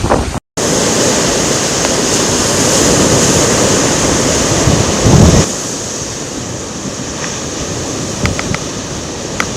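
Typhoon winds and driving rain or surf giving a dense, steady rush of noise, with the wind buffeting the microphone. There is a brief dropout about half a second in, and the sound drops to a lower, steadier rush a little after halfway.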